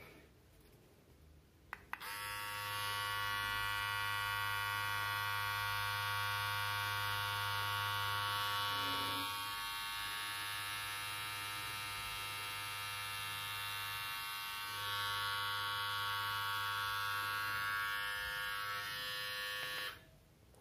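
Xiaomi Mi beard trimmer switched on with a click about two seconds in, its motor and blade running with a steady electric buzz. The buzz is a little quieter for a few seconds in the middle and cuts off shortly before the end.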